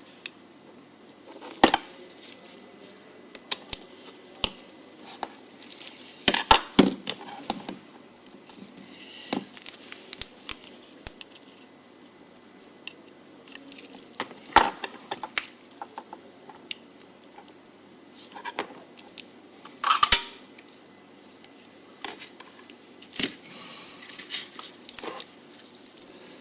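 Irregular clicks, taps and knocks of small parts and tools being handled on a workbench, with a few louder clattering bursts.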